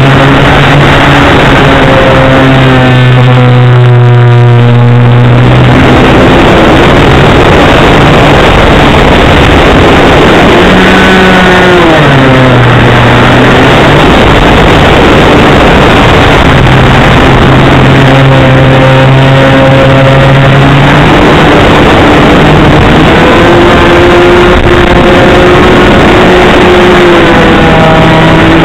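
Engine of a radio-controlled Nexstar model airplane running at speed, heard from a camera on board, under loud wind rush on the microphone. The engine note dips and climbs back about twelve seconds in, and shifts again later as the plane manoeuvres.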